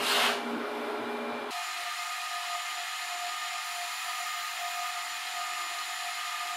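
HP ProLiant DL380 G6 rack server's fans running as it boots: a steady whir with a high whine. A brief noise right at the start, and about a second and a half in the sound changes abruptly, losing its low hum.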